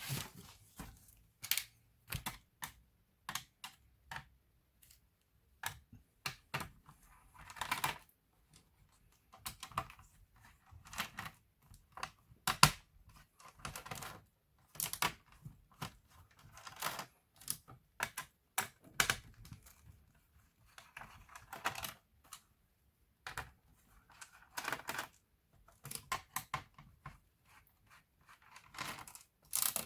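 Irregular clicks, taps and short scrapes of a laptop's plastic case parts and small metal parts being handled and pried during disassembly, with one sharper click about halfway through.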